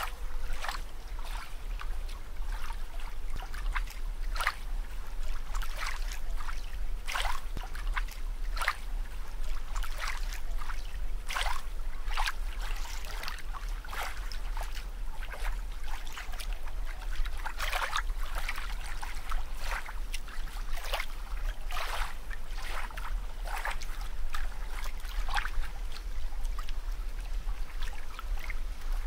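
Water bubbling and splashing in short, irregular pops, several a second, over a steady low hum.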